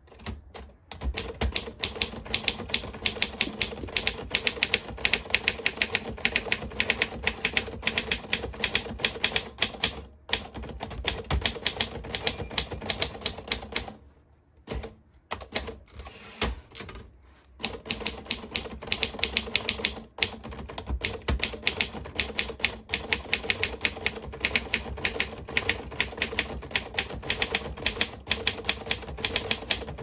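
1959 Triumph Perfekt portable typewriter being typed on steadily, several sharp key strikes a second, with a couple of brief breaks and a longer pause of about three seconds about halfway through.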